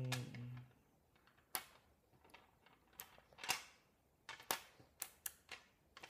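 Small neodymium magnetic balls clicking as they are snapped together and tapped into place along a line on a hard tabletop: about ten sharp, irregularly spaced clicks.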